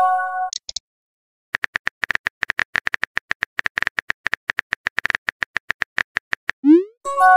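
Texting-app keyboard click sound effects: a rapid run of sharp taps as a message is typed out letter by letter, after a chime fades out in the first half second. Near the end a quick rising swoosh marks the message being sent, followed by another chime.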